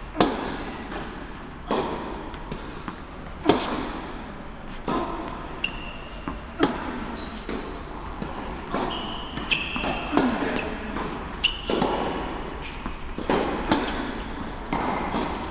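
Tennis ball rally: sharp pops of racket strings striking the ball and the ball bouncing on a hard court, about every one and a half to two seconds, echoing in a large indoor tennis hall. A few short, high squeaks come between the hits.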